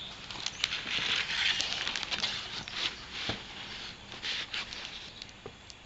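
Paper rustling and crinkling, with scattered light clicks, as large painted sheets are handled and swapped.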